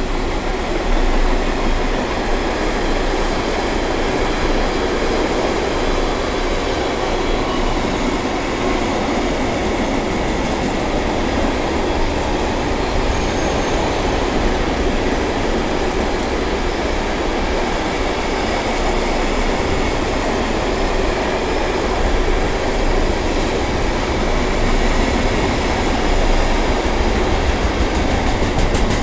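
Intermodal freight train's container wagons rolling past, a steady loud rumble of steel wheels on the rails.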